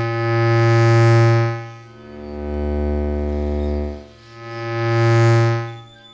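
Microphone-and-loudspeaker feedback drone from homemade wooden speaker-box instruments: a chord of steady, held tones with many overtones. It swells and fades in three slow waves about two seconds apart as a handheld microphone is moved near a speaker.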